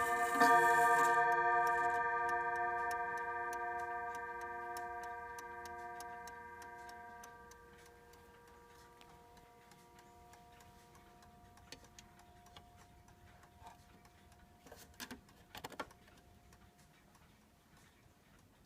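Enfield pendulum mantel clock striking: a last blow about half a second in rings out with several tones together and fades away over about eight seconds, while the movement ticks steadily. A few louder clicks sound near the end.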